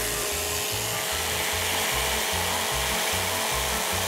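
Hand blender running steadily in its lidded chopper bowl, blending tofu and soy milk into a liquid: an even whir with a steady whine over it.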